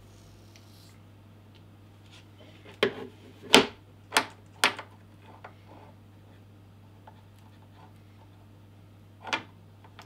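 Sharp clicks and knocks from handling an Ethernet cable tester and the bare wires of a test cable: four in quick succession a few seconds in and one more near the end, over a faint steady low hum.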